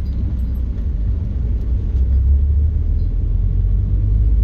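Steady low rumble of a van driving on a paved highway, heard from inside the cabin: engine and road noise.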